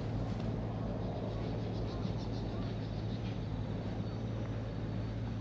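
Steady low background rumble, with a few faint high chirps about two to three seconds in.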